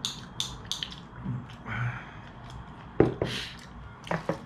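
Metal chopsticks clicking against a porcelain rice bowl several times in quick succession as rice is scooped into the mouth, with wet chewing sounds. A single sharp knock about three seconds in, followed by a few more clicks near the end.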